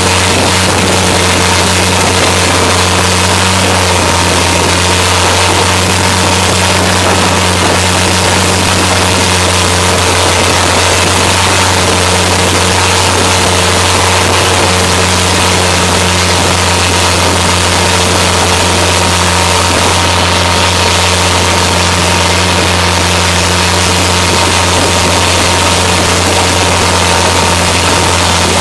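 Boat engine running steadily at speed, a constant unchanging drone, with the rush of water and spray along the hull.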